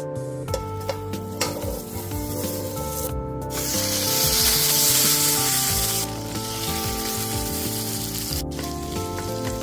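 Food sizzling in a hot frying pan, loudest from about three and a half to six seconds in, over background music with steady notes.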